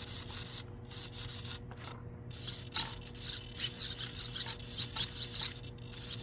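Irregular bursts of rubbing and scraping, coming thicker after the first couple of seconds, over a steady low hum.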